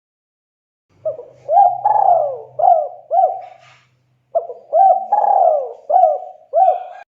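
Spotted dove (tekukur) cooing in two phrases of about five notes each, the first starting about a second in and the second about four seconds in; the last note cuts off abruptly.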